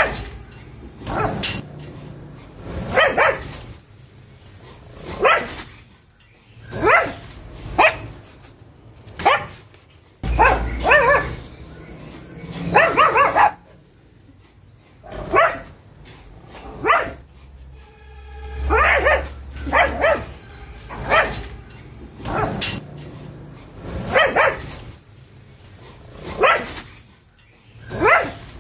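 Pug barking over and over, about one bark every one to two seconds, some in quick pairs and a few drawn out longer.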